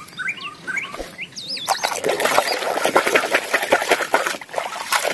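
Water sloshing and splashing in a basin as a muddy plastic toy car is scrubbed by hand, starting about two seconds in. Birds chirp briefly before it.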